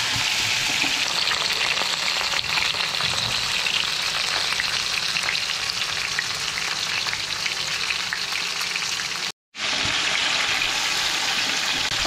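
Flour-dusted chitol (clown knifefish) steaks frying in hot oil in a large nonstick grill pan, a steady sizzle that cuts out for a moment about nine and a half seconds in.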